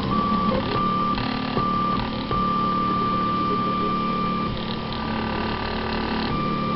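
Stepper motors of a DIY Prusa i3 replica 3D printer running, giving a steady whine made of several tones that jump to new pitches every second or so as the moves change; this is the strange noise heard on the printer's second run.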